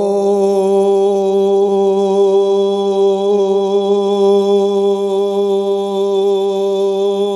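A single chant-like note, rich in overtones, held at one steady pitch without a break.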